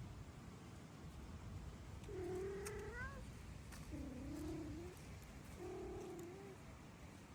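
A cat meowing three times, each call drawn out for most of a second, the first rising in pitch at its end.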